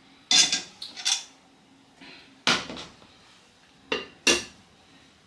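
A metal serving spoon clinking and knocking against a saucepan and crockery. There are about six sharp clinks spread through the few seconds, the loudest ones about halfway and near the end.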